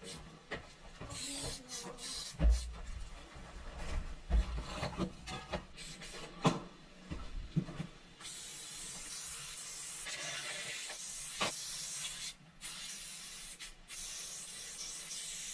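Aerosol spray paint can hissing as silver fill paint is sprayed onto a wall. Short sprays among knocks and a few heavy thumps in the first half, then from about eight seconds in one long steady spray with two brief breaks.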